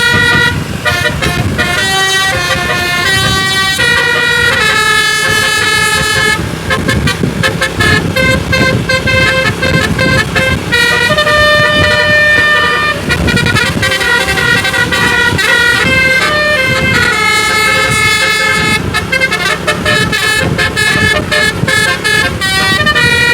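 Bus telolet musical air horn playing a tune: a run of short held horn notes changing pitch every fraction of a second, with a few brief breaks between phrases.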